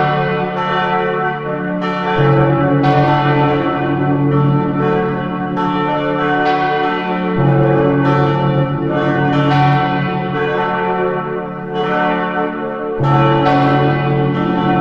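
Church bells ringing: several bells struck in turn, about one or two strikes a second, their tones ringing on and overlapping. A deeper bell joins in roughly every five seconds.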